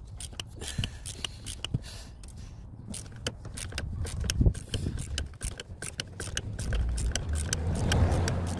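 Light, irregular metallic clicks and clinks of a hand tool working a seized glow plug loose, over a low rumble that swells toward the end.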